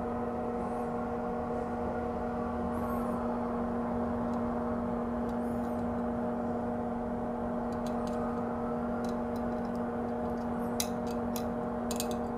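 Steady whir of electric fans, a hot-air rework gun and a fume-extraction fan running, with a constant hum. A few light clicks near the end.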